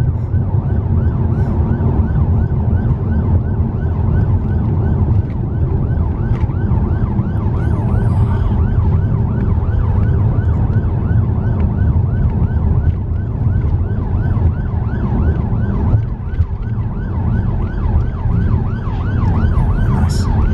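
Police car siren on a fast yelp, rising and falling several times a second, heard from inside a moving car over the steady low rumble of engine and tyres.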